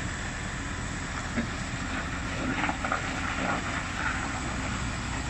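Mitsubishi Fuso prime mover's diesel engine running steadily as the truck pulls a lowbed trailer slowly forward, a deep even rumble.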